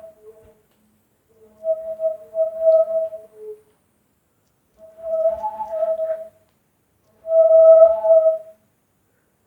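An unidentified hollow, whistle-like tone sounding four times, each lasting one to two seconds with a pause between, sometimes dipping lower in pitch at the end.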